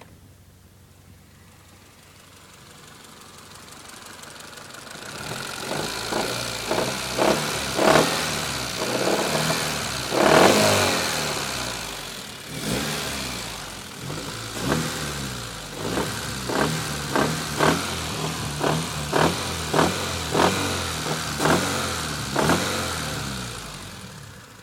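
Car engine that grows louder over the first few seconds, then is revved in many short throttle blips, about one a second, its pitch rising and falling with each. The owner asks whether its sound is rod knock.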